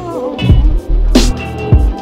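Background music with a heavy bass line and a steady beat of drum hits.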